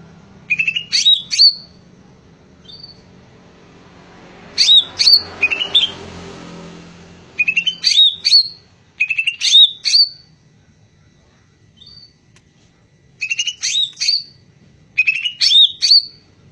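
Cucak ijo (green leafbird) singing in full voice: six loud phrases of quick whistled notes, each sweeping up and down, a second or more apart.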